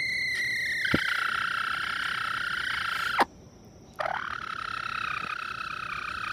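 Light Brahma bantam hen giving her aerial predator alarm call: one long, steady, high-pitched note that drops a little in pitch about a second in. It breaks off for under a second about three seconds in, then carries on.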